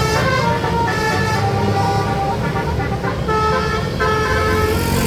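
A tour bus's multi-trumpet 'telolet basuri' air horn playing a tune, several tones sounding together and stepping from note to note, over the low rumble of the bus engine.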